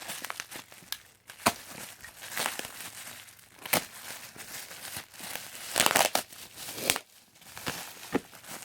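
Packaging being handled and unwrapped by hand: irregular crinkling and rustling with a few sharp clicks and taps.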